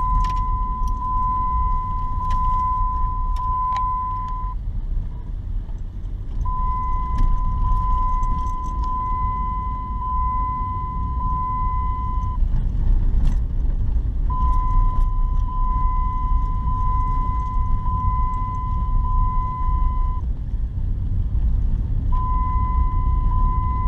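Jeep's seatbelt warning chime beeping over and over, in runs of about six seconds with short pauses in between, because the riders are unbuckled. The steady rumble of the Jeep driving lies underneath.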